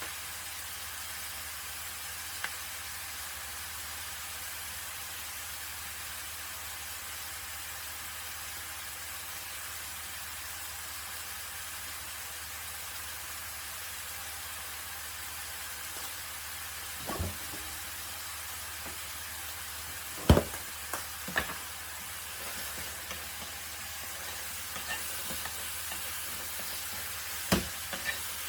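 Chopped onion and bell pepper sizzling steadily in a frying pan. In the second half a few sharp knocks of a utensil against the pan break in, the loudest about two-thirds of the way through.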